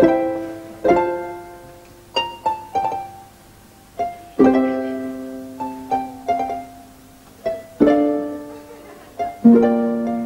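Slow, gentle instrumental music: single notes and chords on a plucked string instrument, struck every second or two, each ringing out and fading away.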